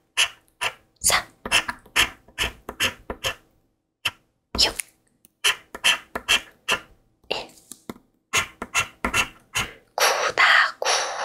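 Scratch-off coating of a Speetto instant lottery ticket being scratched in short strokes, about three a second, with a brief pause about four seconds in and a longer, denser run of scratching near the end.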